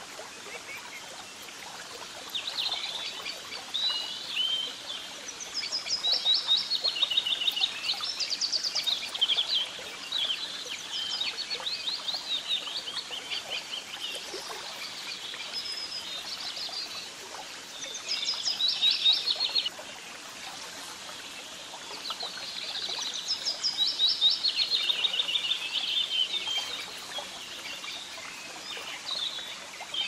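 Songbirds singing in repeated phrases of fast, high trilled notes, loudest in a few bursts lasting several seconds each, over a faint steady hiss.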